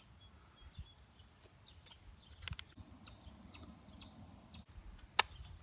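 Faint, steady insect chirring in the background, with a single sharp click near the end.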